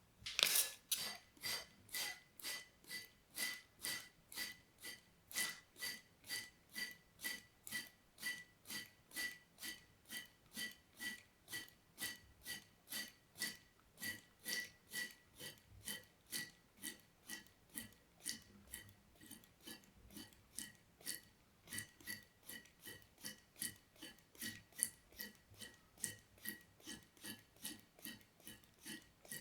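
ASMR water sounds in a steady, even rhythm, about two or three short wet strokes a second.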